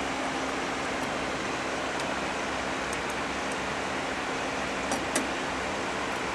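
Steady whirring hiss of machine cooling fans with a low steady hum under it. Two light clicks about five seconds in.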